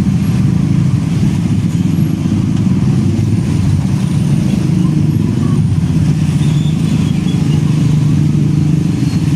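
Heavy diesel truck engine running steadily at close range: a loud, even low hum with no clear rise or fall.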